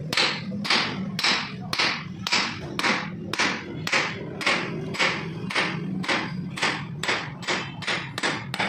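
Steady, even hammer blows, about three strikes a second, during work on a tractor engine.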